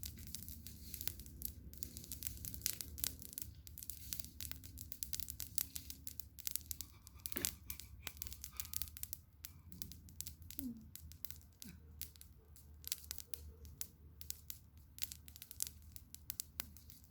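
Wood campfire crackling, with many sharp, irregular snaps and pops over a low steady rumble.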